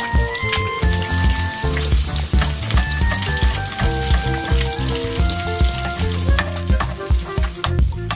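Eggs frying in a generous layer of hot oil in a steel pan, a steady sizzle with dense crackling as they crisp at the edges, with a metal slotted spoon stirring in the pan about halfway through. Background music with a steady beat plays underneath.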